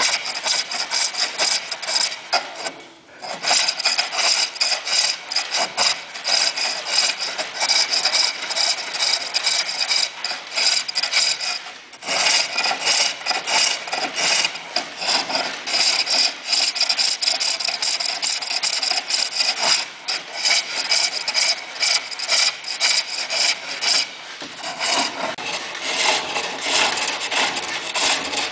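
A tool scraping against a spinning workpiece on a lathe: a steady rasping cut full of fast fine ticks. It breaks off briefly about three seconds in and again about twelve seconds in.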